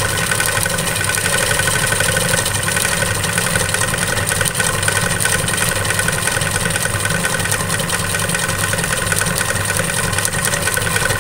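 Sewing machine running steadily at speed, its needle stitching a free-motion wave-stitch fill in hooped fabric, without stopping.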